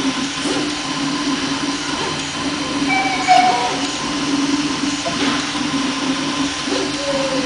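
FDM 3D printer running as it prints small plastic gears: a steady machine hum, with short pitched whines from the stepper motors as the print head moves, a little after three seconds in and again near the end.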